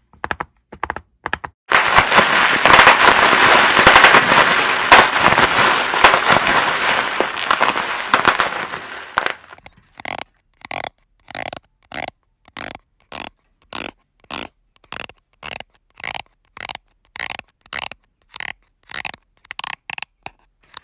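A run of Foley sound effects: a few quick taps, then about seven seconds of dense crackling that dies away, then short, evenly repeated sounds at about two a second.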